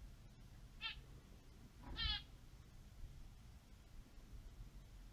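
Two short, high-pitched animal calls: a brief one about a second in and a longer, slightly rising one about two seconds in, over a faint low hum.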